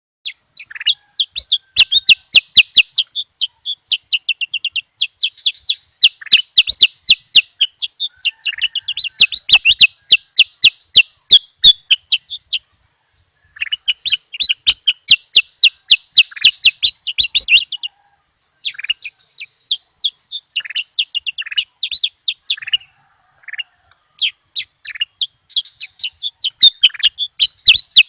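A bulbul singing long, fast chattering trills of rapidly repeated high notes, in bursts separated by short pauses, over a faint steady high-pitched hiss.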